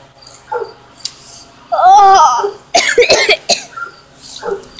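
A child's wordless vocal sounds: a brief wavering voiced sound about two seconds in, then a quick run of rough, breathy bursts from the throat a second later.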